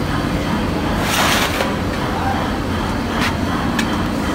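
Steady low background hum, with a short rustling scrape about a second in and a sharp click near the end as a plastic toolbox is handled and its latch undone.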